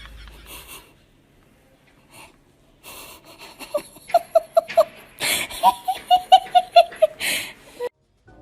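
Someone laughing hard in a run of short, high, wheezing bursts, about three a second, starting about four seconds in and stopping near the end.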